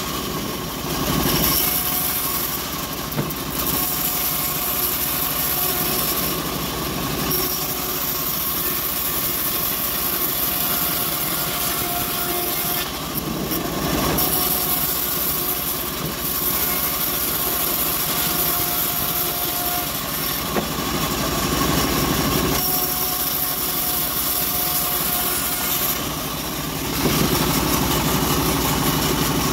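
Homemade bandsaw mill running and ripping long, narrow acacia strips, the blade cutting through the wood over a steady machine noise. The sound shifts every few seconds as pieces go through the blade.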